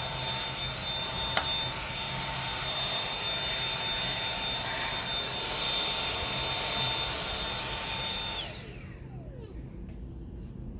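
Dyson V7 cordless stick vacuum running with a steady high whine. It is switched off about eight seconds in, and the motor winds down with a falling whine.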